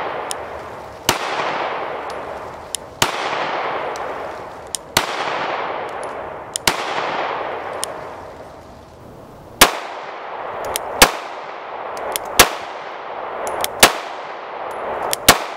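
Glock G48 9mm pistol firing nine single shots at a slow, steady pace, about one every two seconds and then a little quicker near the end. Each shot leaves a long fading echo.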